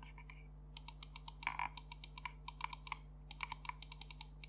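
Side buttons of a Pulsar X2 Mini Wireless gaming mouse clicked repeatedly in quick runs of crisp clicks, several a second, beginning about three-quarters of a second in.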